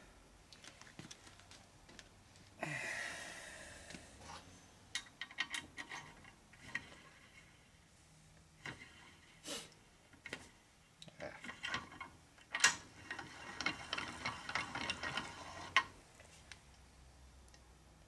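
Scattered light metallic clicks and rubbing as the flywheel shaft of a Harley-Davidson shovelhead lower end is turned and rocked by hand in its crankcase, with a short rushing noise about three seconds in and the clicks coming thicker in the second half. This is an end-play check: the shaft has seal drag and no play can be felt.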